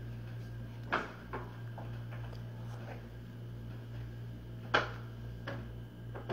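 A few short, sharp clicks over a steady low hum. The loudest clicks come about a second in and just before five seconds, with fainter ones between.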